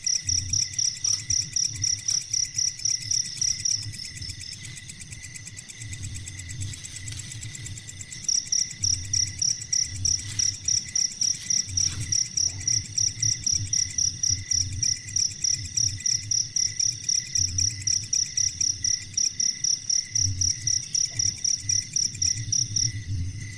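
Insect chirping in a steady, regular train of high pulses, about three to four a second, with a pause of a few seconds early on before it starts again.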